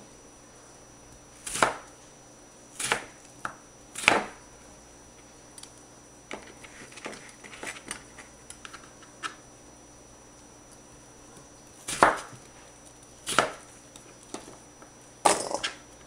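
A kitchen knife cutting raw white radish slices into cubes on a plastic cutting board: separate sharp knocks as the blade strikes the board. There are about four in the first few seconds, a scatter of light taps in the middle, and three more near the end.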